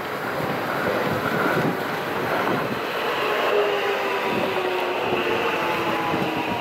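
JR West 521 series electric multiple unit, two sets coupled, running past at close range. Continuous wheel-on-rail rumble with irregular knocks, under a motor whine whose tones drift slowly down in pitch.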